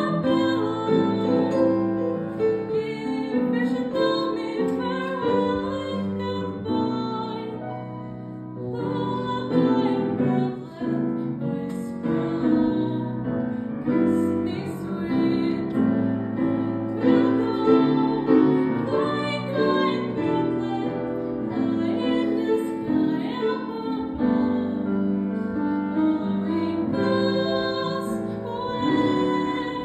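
A young woman singing solo with piano accompaniment, holding many of her notes long.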